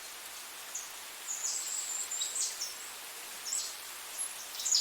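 Outdoor ambience: small birds chirping in short, high calls scattered through, over a steady hiss.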